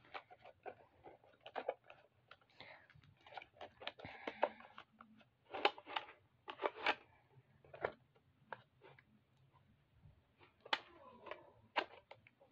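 Foam darts being pushed one by one into a toy dart blaster's plastic magazine: irregular small clicks and plastic handling rattles, with a few sharper clicks around the middle and near the end.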